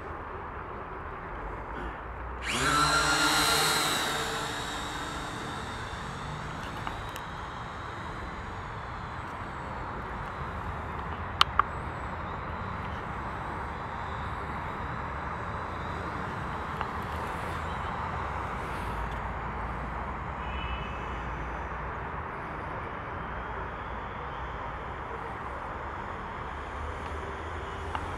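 A small quadcopter drone's electric motors and propellers spin up for takeoff about two and a half seconds in: a loud buzz at a steady pitch that fades within a couple of seconds as the drone climbs away, leaving a steady background. Two sharp clicks about eleven seconds in.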